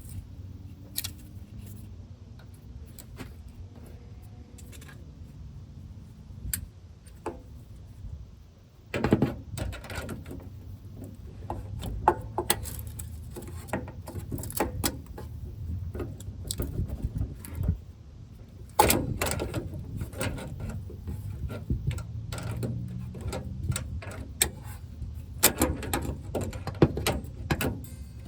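Hand tools such as pliers working at a truck's brake line: irregular metallic clicks, knocks and scrapes over a low steady rumble, with the loudest knocks about 9 s and 19 s in.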